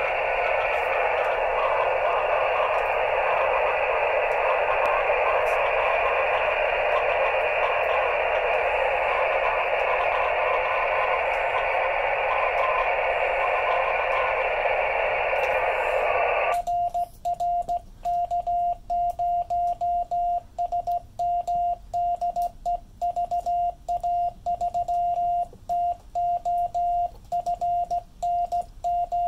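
Amateur radio transceiver's speaker giving steady receiver hiss for about sixteen seconds, which cuts off suddenly as the rig goes to transmit. Morse code is then sent on a hand key, heard as a single steady beep tone switched on and off in dots and dashes: the transceiver's CW sidetone.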